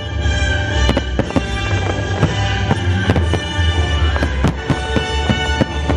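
Fireworks going off in a quick, uneven string of sharp bangs, over steady music.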